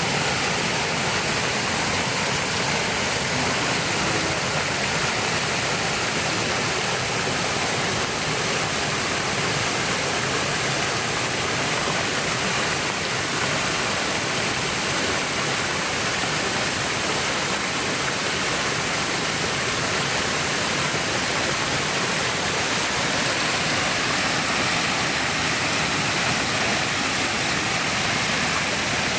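Shiraito Falls: groundwater spilling in hundreds of thin streams over a low, wide rock face, making a steady, even rush of falling water.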